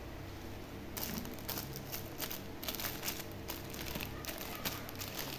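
Plastic packaging crinkling as it is handled, in quick irregular crackles that start about a second in.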